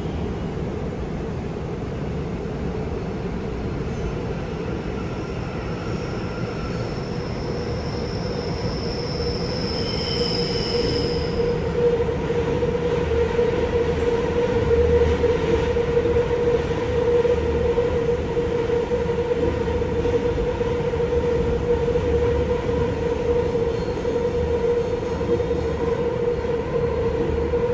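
Busan Metro Line 1 1000-series train with Toshiba PMSM drive running, heard from inside the passenger car: a steady rumble of wheels on rail under a constant mid-pitched tone. The sound grows louder about ten seconds in, with a brief high whine around the same time.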